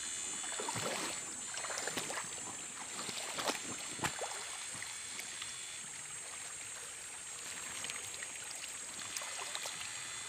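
Stream water splashing and sloshing, with a few sharper splashes in the first four seconds and steadier trickling after.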